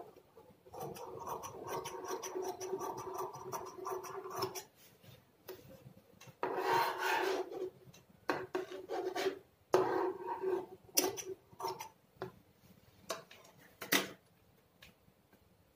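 Large tailor's scissors cutting through cloth to make a strip: one long cut of about four seconds, then several shorter cuts, with a few sharp clicks in the second half.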